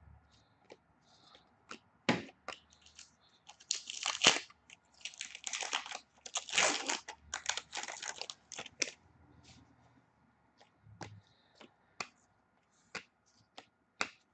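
Foil wrapper of an Upper Deck hockey card pack being torn open and crinkled, with sharp clicks and snaps of the cards being handled. The tearing and rustling is heaviest in the middle.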